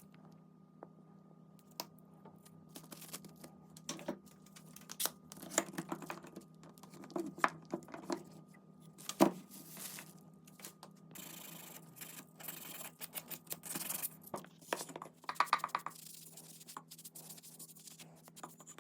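Irregular taps, clicks and knocks from objects being handled, with stretches of scraping or rasping noise a little past halfway.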